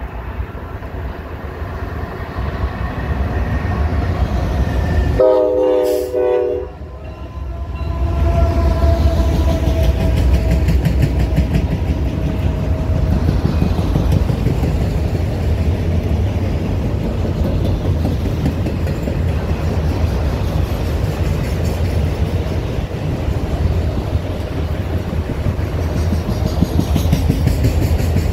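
Norfolk Southern freight train led by GE Dash 9 diesel locomotives: the low rumble grows as it approaches, and the horn sounds one short blast about five seconds in. Then the autorack cars roll past with a steady rumble and clatter of wheels on rail.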